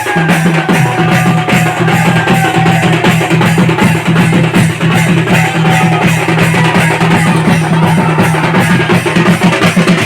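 Loud music with a fast, steady drum beat and a melody line over it.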